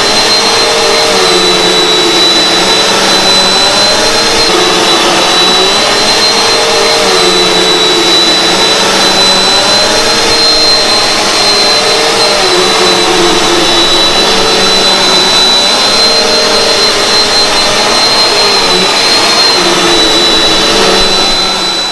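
Bissell PowerForce Helix upright vacuum cleaner running on thick carpet: a steady loud motor and suction whine with a thin high whistle, its lower hum sagging slightly every two to three seconds.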